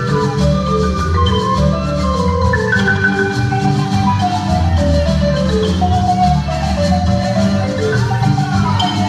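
Marimba music for a folk dance: quick runs of short mallet notes over a steady low bass line.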